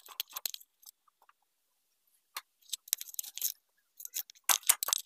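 Metallic clinks and rattles from handling a motorcycle's rear wheel, drive chain and axle parts, coming in three short clusters, the loudest near the end.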